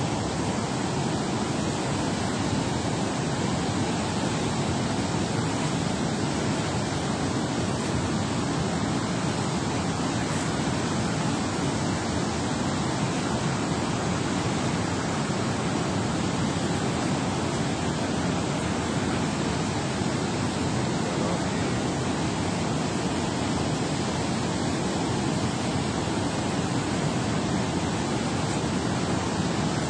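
Water rushing out of a dam spillway, a loud, steady roar of churning tailwater that doesn't change.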